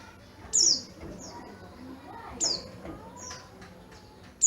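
White-eye (pleci dada kuning) calling: short, sharp, high chirps that drop quickly in pitch, repeated every second or so, some loud and some faint.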